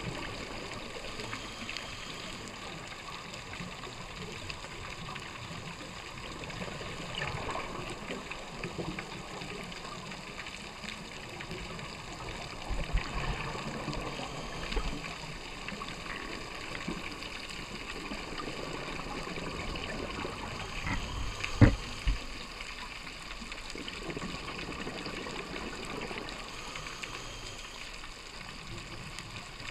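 Underwater ambience on a scuba dive: a steady watery hiss, with a few soft knocks and one sharp click about two-thirds of the way through.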